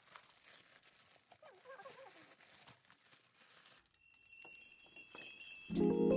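Soft rustling of paper packaging, with a brief quiet voice in the middle. About four seconds in the rustling stops and light chime-like music comes in, turning into loud mallet-percussion music with bells near the end.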